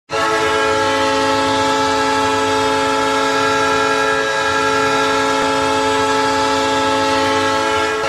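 Ice hockey goal horn sounding one long steady blast, a chord of several tones held at the same pitch.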